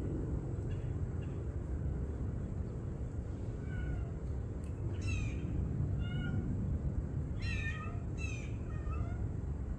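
Cat stuck up a tree meowing, a series of short, high calls about a second apart, over a steady low background rumble.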